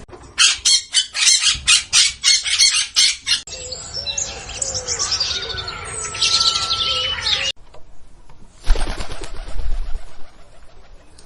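Birds flapping their wings in a run of quick, evenly spaced beats, about four a second, followed by chirps and whistled calls. Near the end comes a rustling noise with some low rumble.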